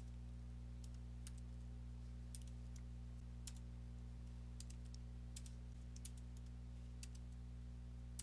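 Computer keyboard keystrokes, sparse and irregular, over a steady low hum.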